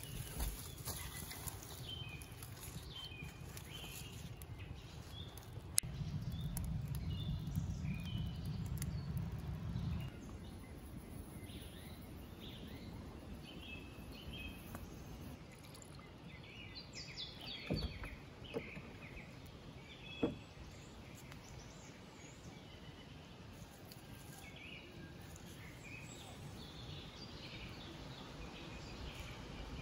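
Small birds chirping on and off, with a few sharp knocks scattered through, and a low rumble that lasts about four seconds near the start.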